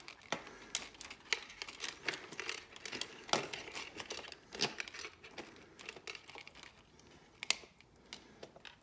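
Hands handling loose wires and small parts of an opened cassette recorder: irregular small clicks, taps and rustling.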